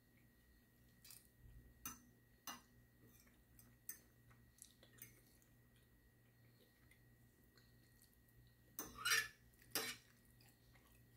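Metal fork clinking and scraping on a dinner plate while eating: scattered light clinks, then a louder cluster of clinks and scrapes about nine seconds in.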